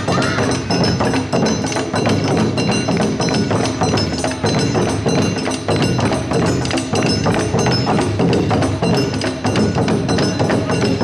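Awa-odori festival band playing: taiko drums beating a steady rhythm, with the metallic ringing of the kane hand gong over them.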